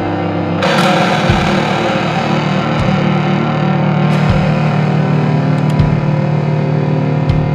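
Funeral doom metal: slow, heavily distorted electric guitar chords held over a low drum beat about every one and a half seconds. The chord changes about half a second in.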